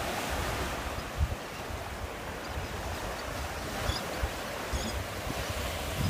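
Small waves breaking and washing up a sandy beach in a steady hiss, with wind buffeting the microphone in low thumps, the strongest about a second in. A few faint high bird calls come through about two-thirds of the way in.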